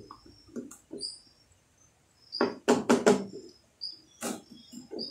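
Knocks and clatter of plastic oil bottles and a fuel jug being handled while two-stroke oil is measured into gasoline, loudest in a quick run of several knocks about halfway through. A short high chirp repeats about once a second behind it.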